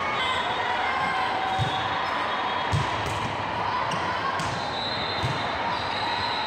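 A ball bouncing on a hard indoor court: about five dull thuds at uneven intervals, over a steady background of many voices.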